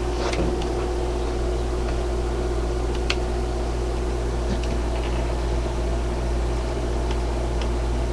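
Steady electrical background hum with a faint buzz, unchanging throughout, and a single light click about three seconds in.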